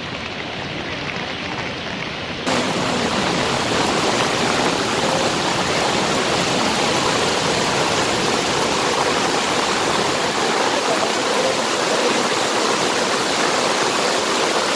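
Steady rushing water, stepping up louder and brighter about two and a half seconds in.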